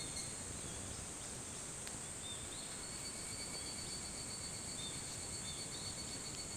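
Higurashi cicadas (Tanna japonensis) singing at dawn: a steady high-pitched ringing, with short repeated chirping notes over it every second or so.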